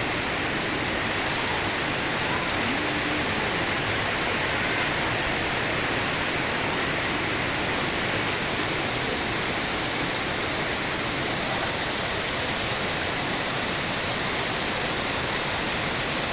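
Steady, even rush of water, from rain or water flowing at a pond in the rainy season, with no change in level throughout.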